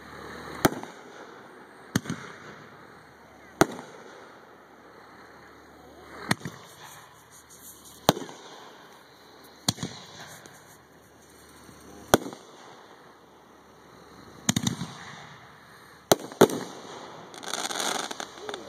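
Aerial firework mortar shells bursting: a series of about ten sharp booms, one every one to two and a half seconds, two in quick succession late on, then a longer noisy rush near the end.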